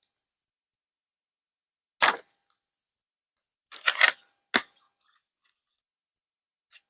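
A few short knocks and clicks of eyeshadow palettes being handled: one about two seconds in, a quick cluster around four seconds, a sharp click just after, and a faint one near the end.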